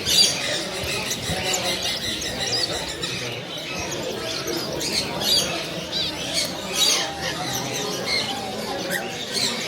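Many small caged birds chirping and squawking together, a dense run of short high calls.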